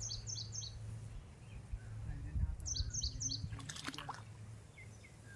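A bird calling twice, each phrase three or four quick, high, falling chirps, over a low steady hum. A brief rustle or knock comes about four seconds in.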